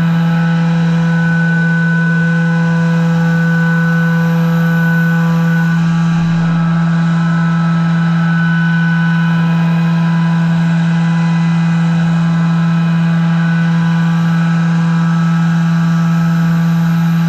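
Haas VF-4 CNC mill spindle running at a constant speed with a short-flute end mill down in a Delrin workpiece: a loud, steady hum with several fixed higher whining tones above it.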